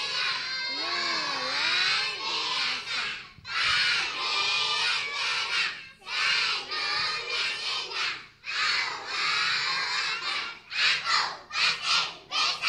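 A group of kindergarten children shouting together in unison: a chanted reply in several phrases with short breaks, ending in a run of short, quick shouts.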